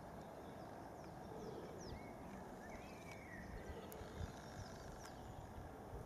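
Faint outdoor ambience: small birds chirping and calling on and off over a low, steady background noise.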